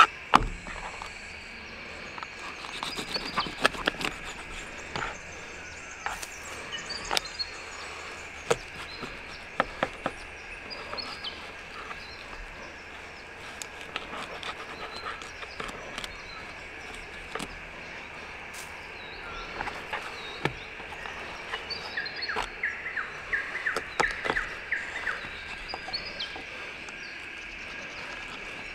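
Knife clicking and scraping against a plastic cutting board as fish is filleted. Birds chirp over a steady high drone in the background.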